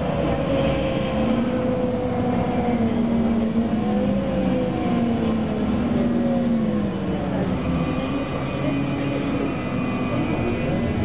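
Bus engine and drivetrain heard from inside the cabin, over a steady road rumble. Its whine rises and falls several times as the bus speeds up and slows.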